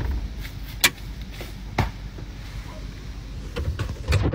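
Handling noise of a phone moved around inside a car: a few sharp knocks and taps over a low steady rumble.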